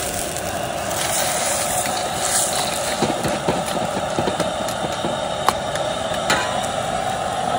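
Steel ladle and spatula scraping and knocking against a wok of freshwater clams cooking in liquid over a portable gas burner. A steady hiss of burner and simmering runs underneath, and there are a few sharp metal clinks in the second half.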